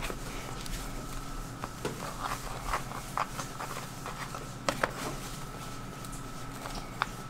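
Light clicks, taps and rustles of handling, with two sharp clicks close together about two-thirds of the way through, over a steady high-pitched electrical hum.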